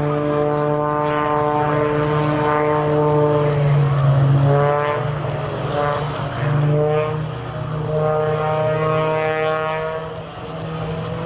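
Single-engine propeller aerobatic plane flying stunts overhead: its engine and propeller drone rises and falls in pitch several times as the plane climbs, dives and rolls, and fades somewhat near the end.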